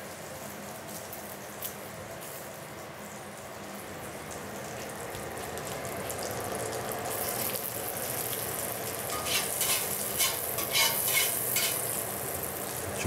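Smashed Yukon gold potatoes frying in butter in a cast iron skillet. A steady sizzle grows louder about halfway through as a potato goes into the hot butter, and turns into dense crackling and spitting.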